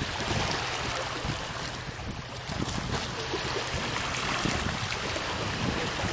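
Wind buffeting the microphone, with small waves washing against shoreline rocks underneath.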